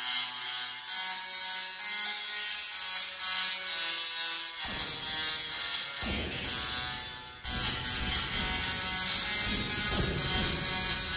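Small musical Tesla coil playing a tune as a buzzing series of pitched notes made by its sparks, which reach out to a plastic snack bag held over it. About four and a half seconds in, the sound turns rougher and noisier, with a brief dip about seven seconds in.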